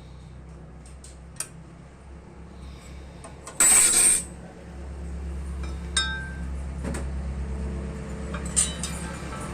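Lathe motor running with a steady low hum, with scattered metallic clinks and taps and a loud harsh burst of noise lasting about half a second, a little over three and a half seconds in.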